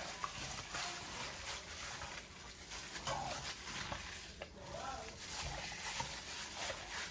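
Hands massaging raw pork in a barbecue-sauce marinade, an irregular wet rubbing and squishing.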